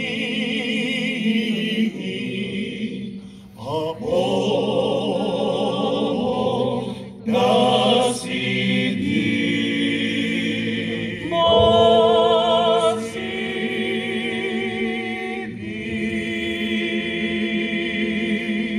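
Choir singing a slow, hymn-like song in long held notes with vibrato; the last chord fades away at the end.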